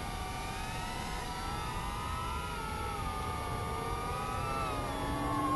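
Electric motors and propellers of FPV aircraft in flight, several whines wavering up and down in pitch with throttle. The whine grows slightly louder near the end.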